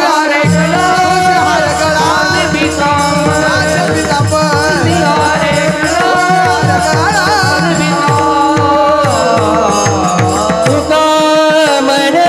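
Marathi devotional bhajan music: melody over a steady drum beat, the drum dropping out about eleven seconds in.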